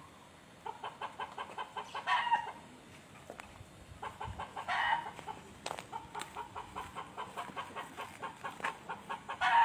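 A chicken clucking in a steady run of short clucks, about three or four a second, broken by a few louder calls.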